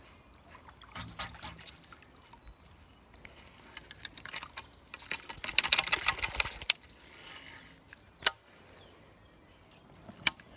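Water splashing in a creek for about a second and a half around the middle, with a couple of sharp clicks near the end.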